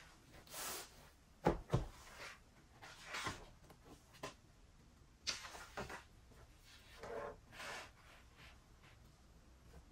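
Desk handling sounds: two sharp knocks about a second and a half in as objects are set down on the wooden tabletop, then a hardcover notebook opened and its pages turned with several soft paper rustles.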